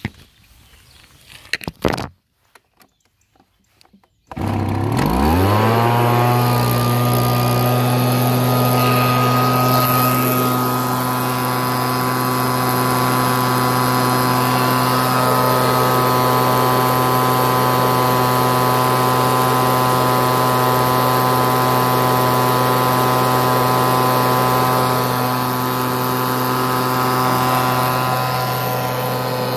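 Two-stroke gas-powered handheld leaf blower starting about four seconds in, its engine rising sharply in pitch and then running steadily at full speed close up, measured at about 100 dB(A). Two brief knocks come in the first two seconds, before the engine starts.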